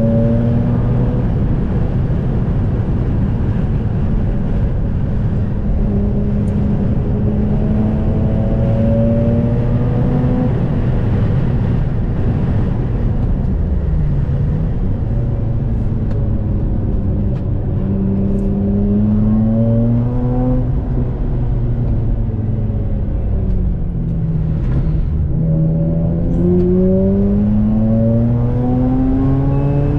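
Stock Mazda RX-8's twin-rotor Renesis rotary engine driven hard on a race track. Its pitch climbs again and again under acceleration and drops sharply twice, about halfway through and again past two-thirds, as the car slows and changes down, over a constant rush of road and wind noise.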